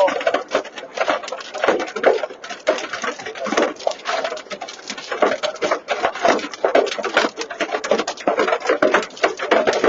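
Small hail mixed with rain hitting the roof and windshield of a stopped vehicle, heard from inside the cab as a dense, irregular clatter of hits.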